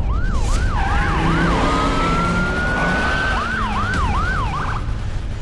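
Police vehicle sirens yelping in quick rising-and-falling sweeps. In the middle they switch to one long, slowly rising tone for about a second and a half, then yelp again until near the end. Underneath runs a steady low engine and road rumble.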